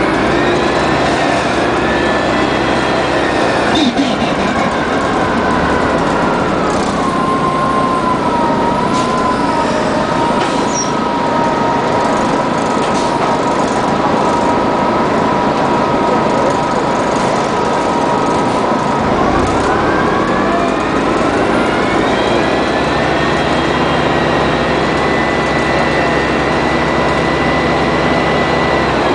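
1999 Orion V CNG bus, with a Detroit Diesel Series 50G natural-gas engine and Allison B400R automatic transmission, under way. A pitched whine rises, settles and holds steady for a long stretch, then climbs again about two-thirds of the way through and holds over the engine rumble. There is a brief knock about four seconds in.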